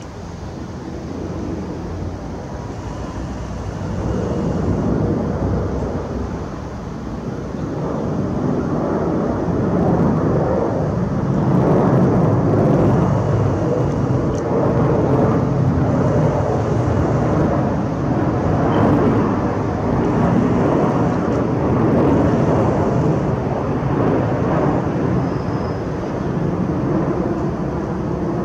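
Jet engine rumble of a four-engine Boeing 747-8 passing low overhead on approach. It grows louder over the first ten seconds or so, then holds steady.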